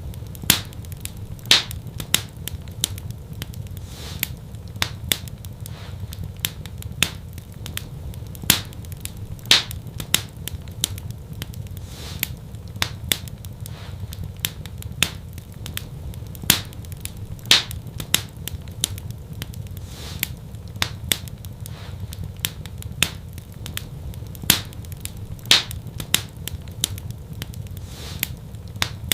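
Fireplace fire crackling: a dense run of sharp crackles with a few louder pops, over a steady low rumble of the flames.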